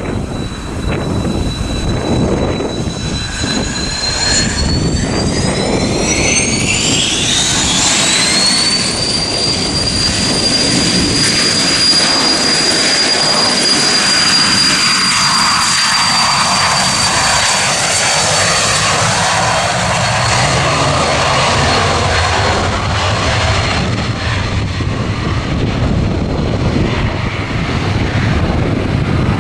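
Jet aircraft engines spooling up: a high whine that climbs in pitch for a few seconds, then holds steady over a loud rushing roar, with wind buffeting the microphone.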